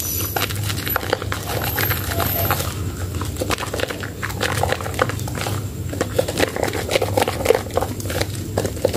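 Hands squeezing and kneading soaked Medicare White bar soap in thick lather, a dense, irregular run of wet squelches and small foam pops.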